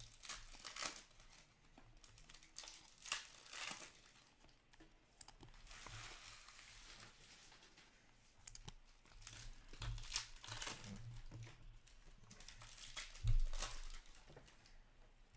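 Trading-card pack wrappers crinkling and tearing open, with cards being slid and shuffled in the hands. Near the end there is a single dull thump, the loudest sound.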